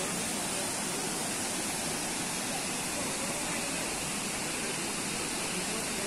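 Steady rushing of white water cascading over boulders in the rocky stream below Khandadhar waterfall.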